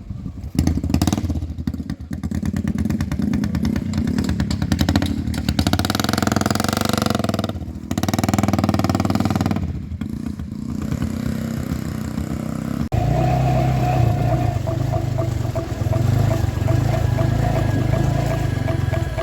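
Motorcycle engine running and revving up and down. About two-thirds of the way through it changes suddenly to a steadier sound.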